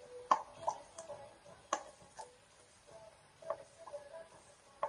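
Plastic squeeze bottle of chili sauce being handled, tapped and squeezed, giving a string of sharp irregular clicks and taps, about eight in all.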